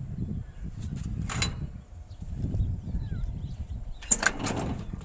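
Sharp metal clicks from the latch of an excavator's engine cover being worked open, once about a second in and again in a short cluster near the end, over a steady low rumble.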